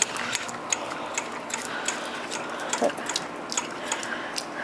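Light, irregular clicks and ticks from the spigot fittings over a faint steady hiss of trickling water.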